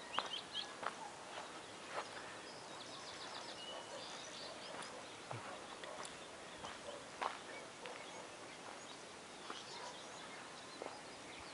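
Footsteps on dry ground and rubble, scattered crunches and clicks, over a steady outdoor hiss with a few bird chirps, including a short quick trill about three seconds in.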